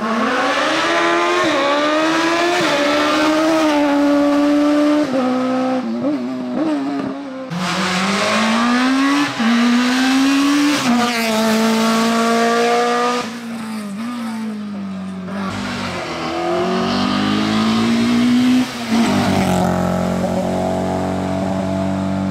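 Historic rally cars driven hard on a closed stage, their engines revving up through the gears with a sharp drop in pitch at each upshift, the engine note coming and going as the cars pass.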